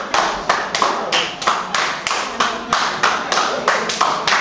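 Rhythmic hand clapping by dancers keeping time in a men's group dance, with sharp claps coming evenly about three to four times a second.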